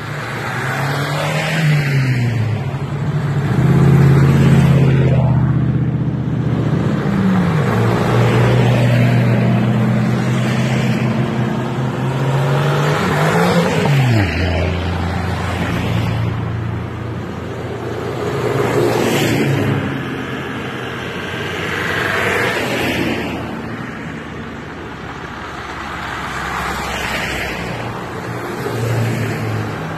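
A line of 4x4 off-road vehicles driving past one after another, each engine's pitch dropping as it goes by, several times over.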